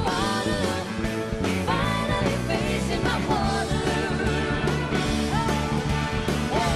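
Women's vocal trio singing live, backed by an orchestra and band.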